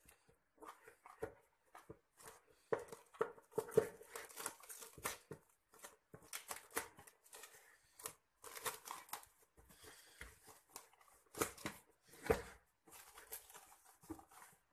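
Plastic cling film being handled and pressed down over a bowl, crinkling and rustling in irregular crackly bursts.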